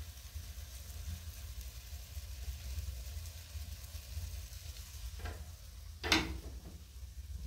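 Eggs frying in a pan on a gas burner, a steady sizzle. Near the end come a light knock and then a sharp metal clank of the pan or a utensil against the pan.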